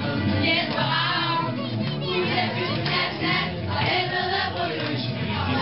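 A group of teenagers singing a song together over backing music.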